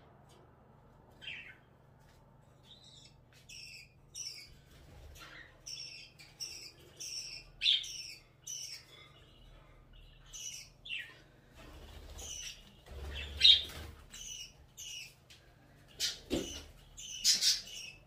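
Budgerigars chirping: a run of short, quick chirps, sparse at first, then busier and louder toward the end.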